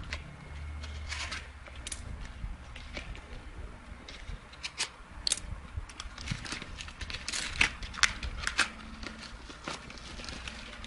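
Paper envelope being rustled and torn open by hand: a run of irregular crackles and short rips, loudest a little past the middle, then a small plastic bag crinkling near the end.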